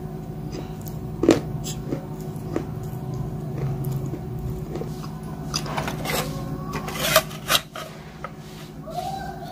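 Close-miked biting and crunching of something hard in the mouth: a few separate sharp crunches, then a quick run of them in the second half, over a steady low hum.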